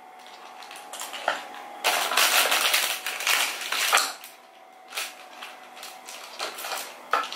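Thin plastic wrapping crinkling and rustling in several bursts as makeup brushes are handled and unwrapped, with a few light clicks. The crinkling is loudest from about two to four seconds in.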